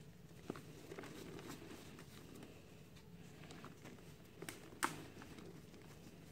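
Dry lumps of pure cement being crushed and crumbled by hand: a soft gritty crumbling with scattered small sharp cracks as pieces snap apart, the loudest about five seconds in, and crumbs pattering down into cement powder.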